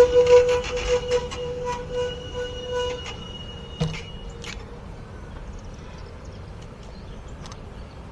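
Amtrak passenger train's brakes squealing in one steady high tone as it rolls to a stop, fading out about three seconds in. A knock and a click follow, then only a low background hum as the train stands.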